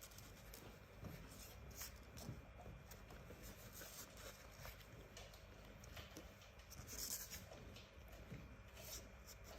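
Near silence with faint scratchy rubbing and a few soft ticks.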